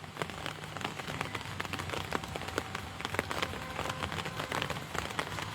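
Rain falling, with many small irregular drop ticks on a nearby surface over a steady patter.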